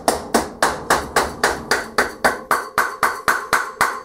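Front axle of a 2001 KTM 250 being tapped through the fork leg and wheel hub with a hammer: a steady run of sharp knocks with a short ring, about four a second.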